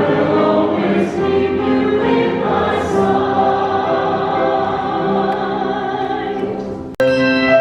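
Choir singing sacred music with sustained, held notes. Near the end it cuts off abruptly, and a sharply struck, ringing note begins.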